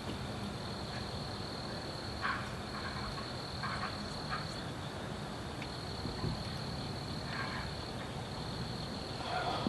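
Steady high trilling of crickets, with an unidentified animal giving several short calls that are heard as possibly a wild pig.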